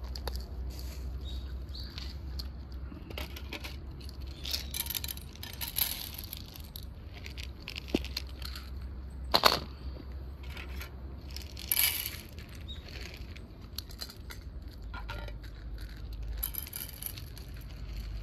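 Cats crunching dry kibble and nosing it around in glass bowls, with small clinks of food and teeth against the glass; sharper clinks about nine and a half and twelve seconds in, over a low steady rumble.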